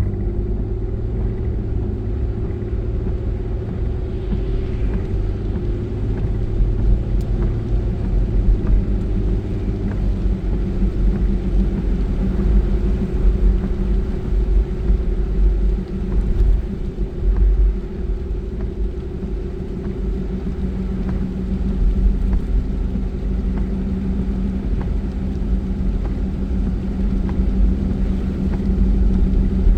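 Car engine and road rumble heard from inside the cabin while driving, steady and low, with the engine note shifting a few times.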